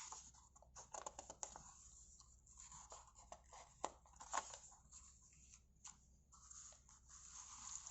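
Faint rustling of paper and light clicks: the pages of a Lego instruction booklet being handled and turned.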